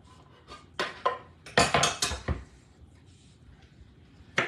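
Metal utensils clinking and scraping against a skillet and a wooden cutting board as chopped onion is pushed off the board into a pan of browned chili meat and stirred in. There is a quick run of sharp clinks about a second or two in and one more near the end.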